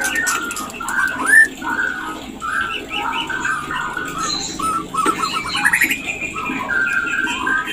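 White-rumped shama singing its breeding-season calls: a continuous run of short, varied whistled notes and chatters, with a quick rattling burst about five seconds in.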